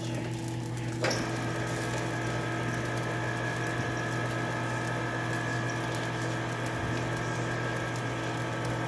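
Electric can opener motor running steadily as it turns a can and cuts around its lid, starting about a second in.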